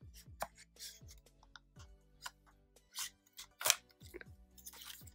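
Scissors snipping through the sticker seal on a paperboard cosmetics box: a series of irregular sharp cuts, the loudest a little past halfway through. Quiet background music plays underneath.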